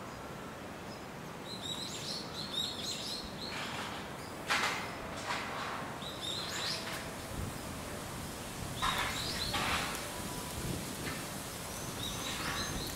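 Small birds chirping in short, high twittering phrases several times, with a few brief rustling noises, the loudest about four and nine seconds in.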